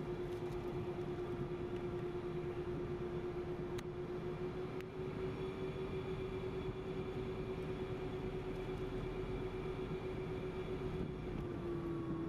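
Jet engines of a regional airliner whining steadily at taxi power, heard from inside the cabin as a constant hum with a steady tone over rushing noise; the tone drops slightly in pitch near the end.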